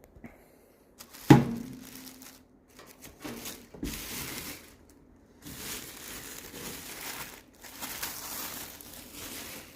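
Plastic packaging crinkling and tearing in long rustling stretches as it is pulled off a new toaster oven, with a sharp knock about a second in, the loudest sound, and a softer knock a few seconds later.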